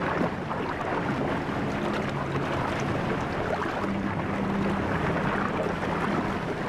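Muffled underwater churning of river water stirred by wildebeest wading and swimming, with a low steady hum beneath.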